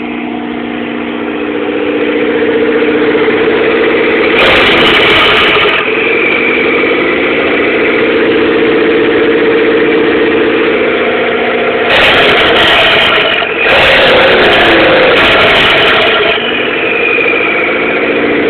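1997 Mitsubishi Eclipse GS-T's turbocharged 4G63 four-cylinder running loud through an exhaust open after the O2 housing with no downpipe. It idles unevenly, with engine speed swelling up briefly about four seconds in and again for several seconds from about twelve seconds, then sinking back: the idle surge that the owner cannot yet explain.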